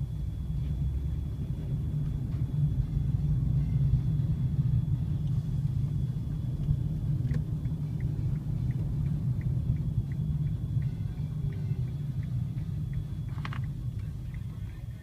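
Low, steady engine and road rumble inside a taxi's cabin in slow city traffic. From about halfway through, a light ticking comes about three times a second, and a brief sharper sound comes near the end.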